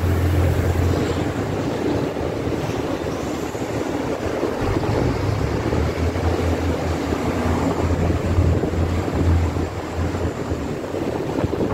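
Iarnród Éireann 29000 Class diesel multiple unit passing close below, its underfloor diesel engines giving a steady low hum, with wind buffeting the microphone.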